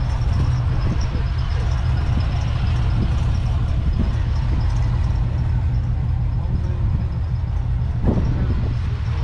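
Massey Ferguson 35's 2.5-litre three-cylinder diesel engine idling steadily.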